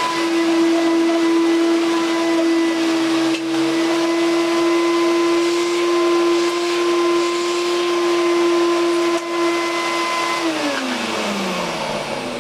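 Bagless vacuum cleaner running with a steady whine. About ten seconds in it is switched off and the motor winds down, its pitch falling.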